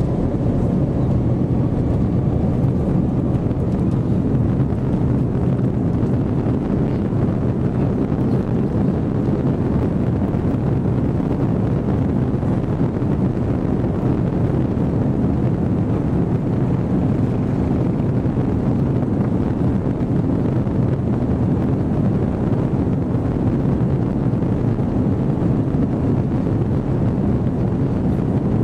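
Airbus A330-200 jet engines at takeoff power, heard inside the cabin as a steady, loud rumble with rushing air. A faint rising whine in the first couple of seconds comes as the engines spool up.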